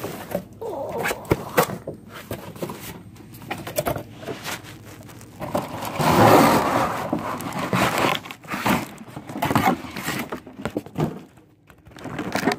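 Cardboard box being handled and scraped by hand as a toy is worked out of it: scattered scrapes and knocks, with a longer, louder rustle about six seconds in.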